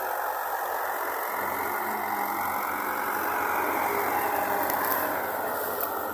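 Engine of a heavy diesel farm machine running steadily, swelling in the middle and easing off again near the end.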